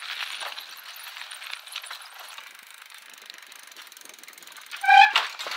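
Bicycle freewheel ratchet clicking in fast, even ticks as the wheel spins, gradually fading. Near the end there is a short ringing tone, the loudest sound here, followed by a few sharp clinks.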